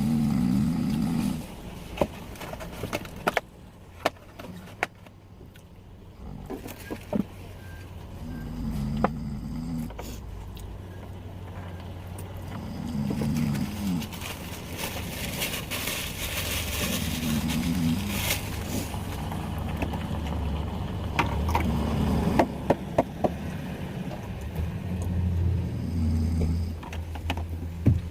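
Slow rhythmic snoring, one snore every four to five seconds, over a steady low hum, with a few small sharp clicks and taps between the snores.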